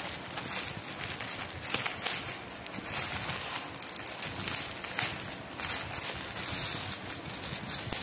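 Clear plastic wrapping crinkling and rustling as hands press and handle a packet of folded fabric pieces, with irregular small crackles.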